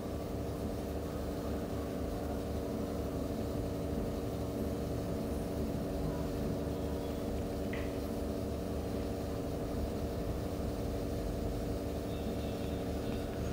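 Steady machine hum at a fixed pitch, with one faint click about eight seconds in.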